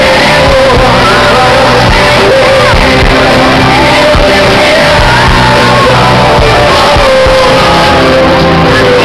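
A rock band playing live in a large hall, heard from the audience, with singing and shouting voices over the music; the recording is very loud throughout.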